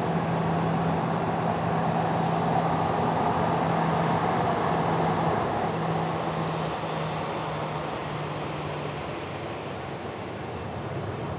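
Boeing 737-800's CFM56 jet engines running at taxi power as the airliner taxis past: a steady jet whoosh with a low hum. The sound fades over the second half as the aircraft moves away, and the hum breaks up and drops out.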